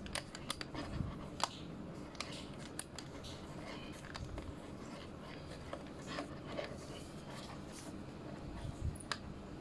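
Film being rewound by hand in a 1939 Argus A2F 35 mm camera: the rewind knob turned in short twists, with irregular small clicks and scraping from the mechanism and fingers.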